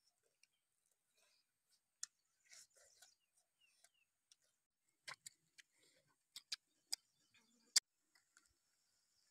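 Faint mouth sounds of people eating roast chicken by hand: scattered sharp clicks and lip smacks, mostly in the second half, with long quiet gaps between.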